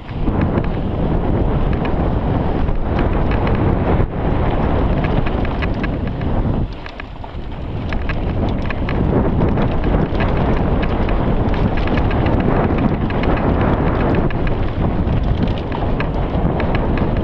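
Wind rushing over the microphone while a mountain bike rattles and its tyres crackle over a rough dirt trail at speed, with a constant patter of small clicks and knocks. The noise eases briefly about seven seconds in, then picks up again.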